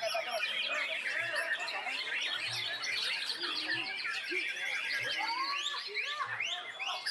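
Caged white-rumped shamas (murai batu) and other songbirds singing over one another: a dense, unbroken tangle of rapid whistles, chirps and trills.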